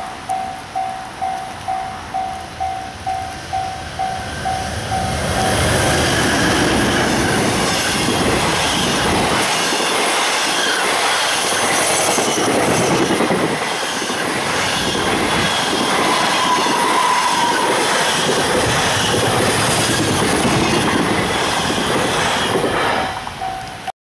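Japanese level-crossing bell dinging about twice a second, drowned out about five seconds in as a long EH500-hauled container freight train passes at speed: a loud, steady rush of wheels on rail with the rattle of the wagons. The train's noise drops off near the end and the crossing bell is heard again.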